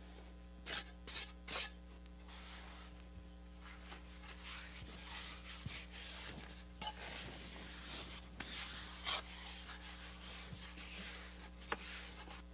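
A steel trowel scraping and spreading wet mortar over a brick patio surface to lay a mortar bed, in a series of rasping strokes. Three short strokes come about a second in, then the scraping runs on more densely.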